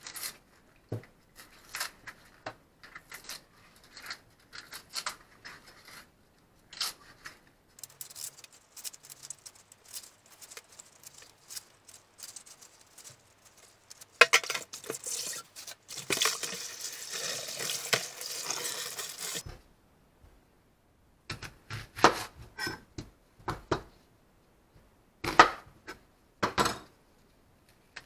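Dry, papery onion skin crackling and tearing as an onion is peeled with a kitchen knife and rubber-gloved hands: many short crinkles and scrapes, with a denser stretch of steady rustling in the middle. Near the end come a few sharper clicks and knocks.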